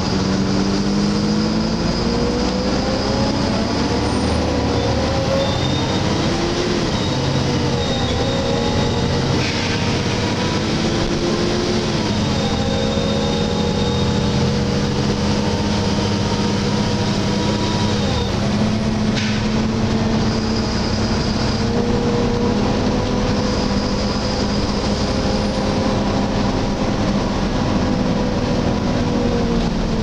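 Cabin sound of a Volvo B7LA articulated bus running: a steady drone from its diesel engine and drivetrain, the pitch drifting slightly, with a faint high whine that comes and goes.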